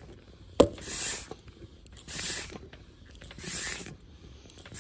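Mityvac MV7400 hand vacuum pump being stroked by hand, a hiss of air on each stroke, about one stroke every 1.3 seconds, with a sharp click about half a second in. The pumping builds vacuum in the reservoir to draw engine oil up through the dipstick tube.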